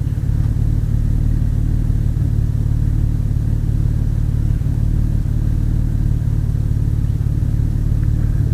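A 1995 Chevy S10 pickup's 350 small-block V8 idling steadily, with an even low rumble and no revving.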